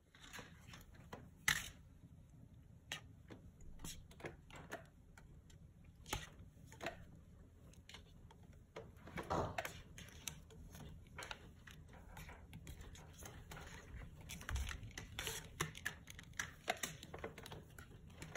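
A young kitten playing: irregular light clicks, taps and scuffles of its paws and claws against the floor and the object it is batting at.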